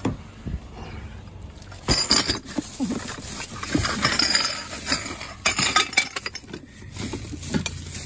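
Glass carafe of a Moulinex drip coffee maker clinking and knocking as it is handled inside a rustling plastic bag. The knocks and rustles come in bursts, loudest about two seconds in and again from about four to six seconds in.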